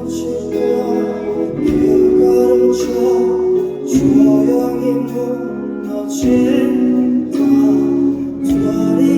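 Live band playing a slow pop ballad: sustained chords that change about every two seconds, with some singing over them.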